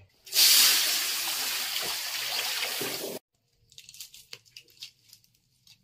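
Water running hard from a tap, loudest at first and then steady, stopping abruptly about three seconds in. A few faint clicks follow.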